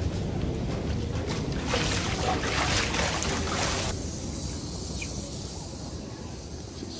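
Steady low rumble of an indoor pool building's tiled halls, with a loud hiss of spraying water for about two seconds from a little under two seconds in.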